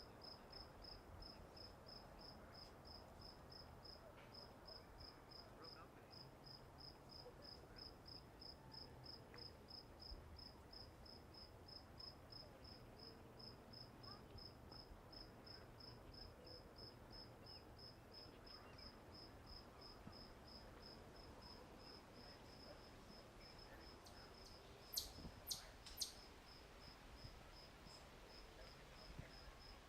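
Crickets chirping faintly and steadily, a high pulsed chirp at about three chirps a second. Near the end, three sharp clicks in quick succession stand out as the loudest sounds.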